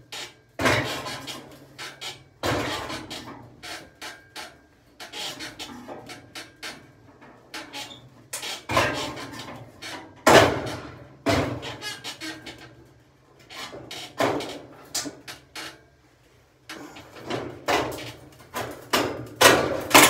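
Clothing rubbing and brushing against the microphone, mixed with irregular knocks and scrapes from sheet-metal work as a rusty truck cowl panel is worked loose.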